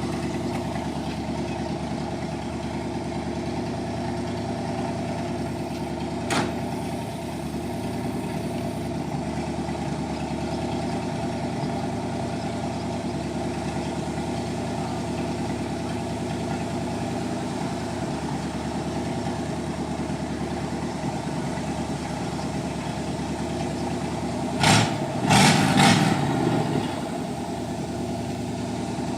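1958 Chevrolet Apache pickup engine idling steadily, running smoothly on freshly cleaned and regapped spark plugs. A short click about six seconds in and a few knocks near the end.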